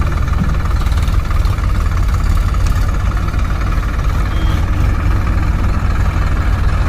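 Heavy diesel engine running steadily, deep and even, with no change in speed.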